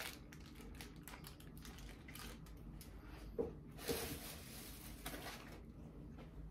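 Faint chewing and rustling of a burger's paper wrapper, with a few soft crinkles near the middle.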